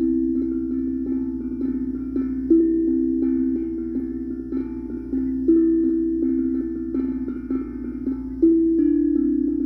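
Steel tongue drum being played: a repeating pattern of struck, ringing notes, with a loud accented note about every three seconds and quicker, lighter strikes between.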